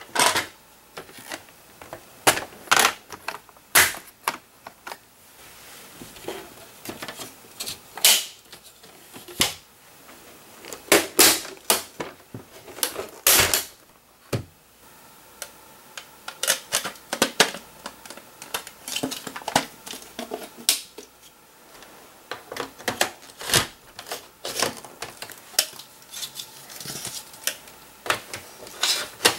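Hard plastic Hot Wheels Race Crate panels and track pieces being unclipped and handled: a string of irregular plastic clicks, clacks and snaps.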